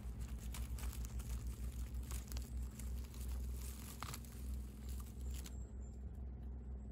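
Dry leaf litter and twigs crackling and rustling as a hand grips and pulls a young porcino mushroom out of the forest floor. The crackles die down about five and a half seconds in, over a low steady rumble.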